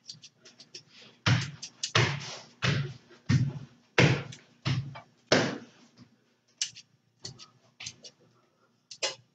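Kitchen scissors snipping through slices of pepperoni, a string of short sharp snips about one or two a second, louder in the first half and fainter toward the end.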